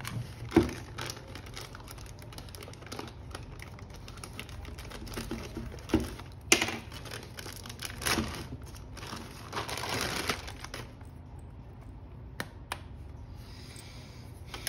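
A parcel being handled and unwrapped by hand: crinkling and tearing of the packaging, with scattered clicks and a few louder knocks.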